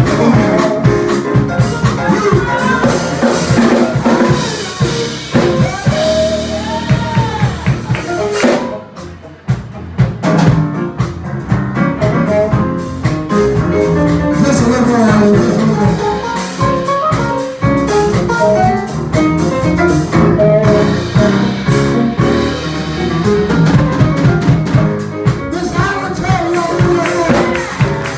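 Live soul band playing, with a drum kit keeping the beat under a melodic lead line. The music thins out briefly about nine seconds in, then comes back in full.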